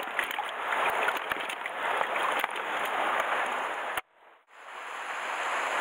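Steady wash of sea surf on the rocky shore, with a few light knocks as plastic water bottles are shifted inside a cooler. About four seconds in, the sound cuts out abruptly and the surf fades back in a moment later.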